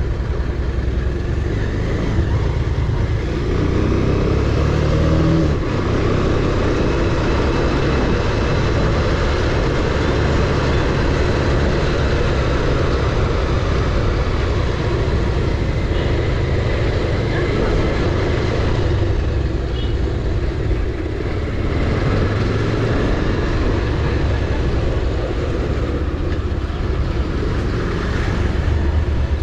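Bajaj Pulsar 220F motorcycle being ridden, its single-cylinder engine running steadily under way.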